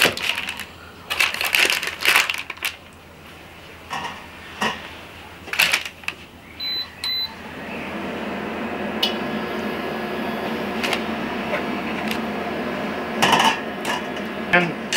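A knife knocks several times through a block of butter onto a cutting board. About seven seconds in, a portable induction hob's controls give two short beeps, and the hob then runs with a steady electric hum. Near the end a spatula clatters in the stainless steel pot.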